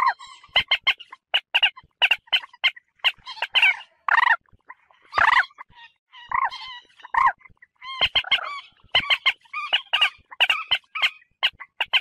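Common moorhen calling: a rapid, uneven series of short, sharp notes, with a few longer calls mixed in about four and five seconds in.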